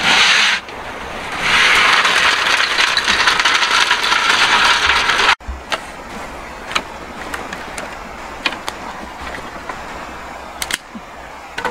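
River snails clattering in a large metal wok as it is tipped and shaken, a dense rattle of shells on metal for a few seconds that cuts off suddenly. Then scattered sharp clicks and snaps from a smoking wood fire and sticks being handled.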